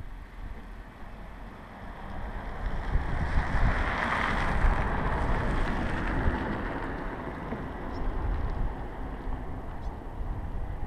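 A car passing on the road, its tyre and engine noise swelling to a peak about halfway through and then fading, over a low rumble of wind on the microphone.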